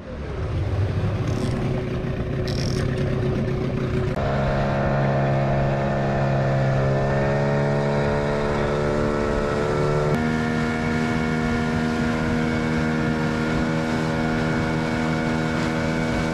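Boat's outboard motor running under way over a steady rushing noise, its engine note stepping up to a higher pitch about four seconds in and again about ten seconds in as the throttle is opened.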